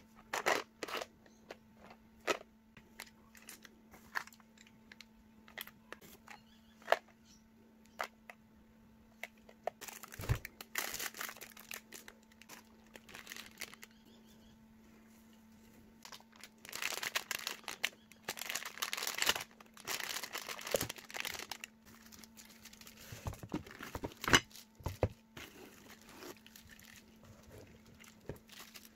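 Plastic packaging crinkling and rustling as parts are handled and lifted out of a foam-lined cardboard box, with scattered light clicks and knocks. Longer bursts of crinkling come about ten seconds in and again around seventeen to twenty-one seconds, over a faint steady low hum.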